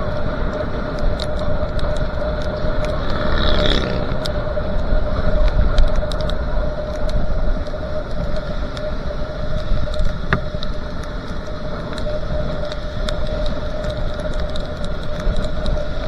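Motorcycle riding at steady road speed on a wet road: a constant engine hum under wind and tyre noise, with scattered small ticks. A brief louder rush about three to four seconds in.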